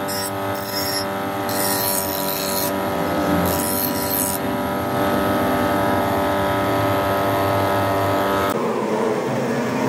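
Electric bench grinder running with a steady motor hum, and a spring-steel knife blade pressed against the wheel in short spells, each adding a harsh grinding hiss. The grinder sound gives way to a different sound about a second before the end.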